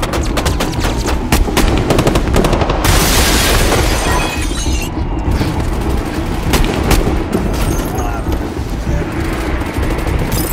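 Rapid automatic gunfire in a film shootout, with shots coming thick and fast for about the first three seconds. A broad surge of noise follows, then sparser shots.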